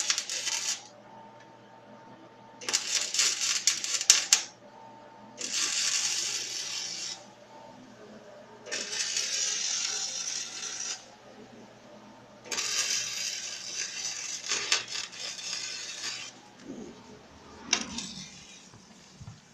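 Electric arc welding on a quad's steel frame: a crackling, sizzling hiss in runs of one to four seconds with pauses between, about five runs in all, the last one brief.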